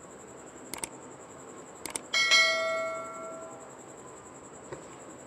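A metal spoon knocks against a metal cooking pot: a few light clicks, then one ringing clang about two seconds in that fades over about a second and a half.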